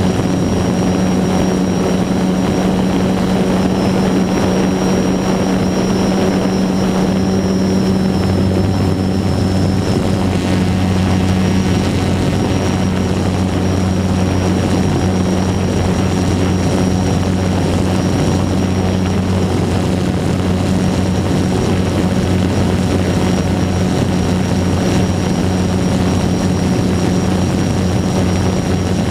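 DJI Phantom 2 quadcopter's four T-Motor MN2214 brushless motors and propellers running in a near hover: an even, loud buzzing hum at a steady pitch, heard close up from the airframe.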